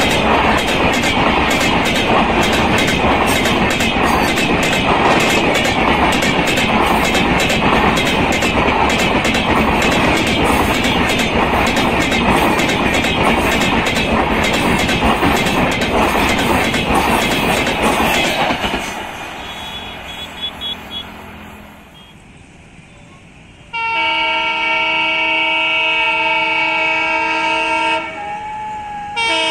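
Passenger coaches running past at speed, their wheels clacking over rail joints in a quick steady rhythm, until the sound fades away about two-thirds of the way through. After a short lull, an approaching diesel locomotive's horn sounds a long, loud blast of several steady tones, breaks off briefly near the end and starts again.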